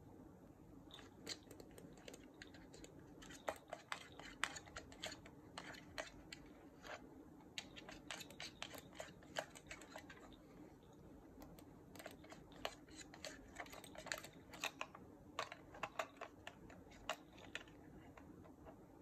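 Cat biting and chewing a plastic wireless computer mouse: irregular sharp clicks and crunches of teeth on plastic, starting about a second in and stopping near the end.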